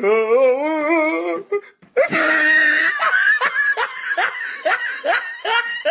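A cartoon character's voice: a held, wavering vocal sound, then a run of laughter in short bursts, about two or three a second.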